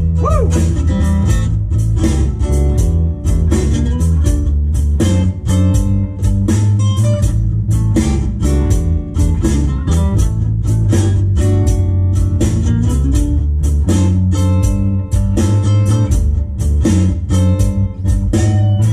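Instrumental blues played on a cigar box guitar over an electric bass guitar, with a steady beat.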